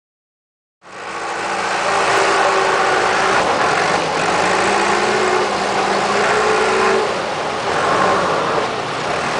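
Backhoe loader's diesel engine running, its revs rising and falling slightly, over a steady noisy hiss. The sound starts about a second in.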